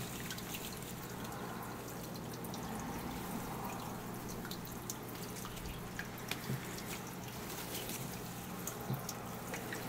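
Steady hiss over a low hum, with scattered faint ticks and a few light knocks, the sharpest right at the start.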